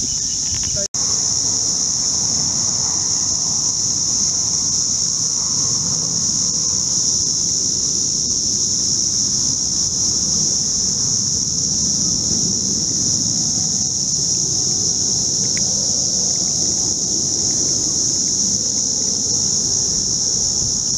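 Steady high-pitched insect chorus, with a low rumble underneath; the sound drops out for an instant about a second in.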